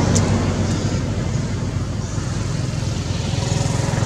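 Steady low rumble of a motor vehicle engine running.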